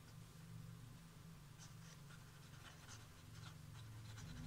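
Pen writing on paper: faint, short scratching strokes, over a low steady hum.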